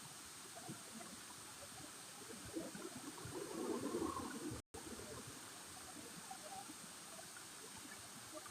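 Faint, steady running water, like a small stream or trickle. About three seconds in it grows louder for a second or two, and near the middle the sound cuts out completely for a moment.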